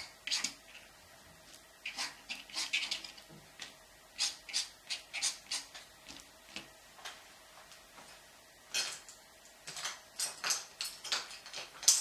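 A paintbrush scrubbing oil paint onto paper in quick, short, scratchy strokes, several in a row, then a pause, then another run.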